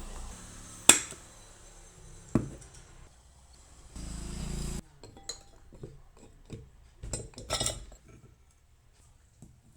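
Clinks and knocks of tools and ceiling-fan parts being handled during a bearing change. There are two sharp knocks, about one and two and a half seconds in, a brief noisy burst around four seconds, and a quick run of clinks near eight seconds.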